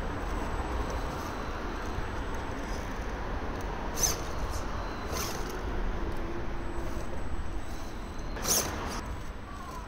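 RC4WD Bully II MOA radio-controlled rock crawler climbing a boulder, its tires and chassis knocking against the rock: a few sharp knocks, the loudest about four and eight and a half seconds in, over a steady noisy background.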